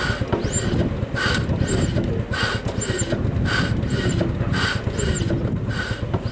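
Rhythmic rasping strokes, each with a short squeak, a little under two a second, over a steady low rumble.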